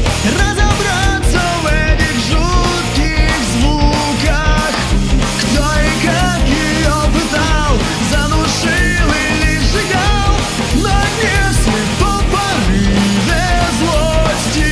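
Rock music in an instrumental passage: a bending lead melody line over bass and a steady drum beat.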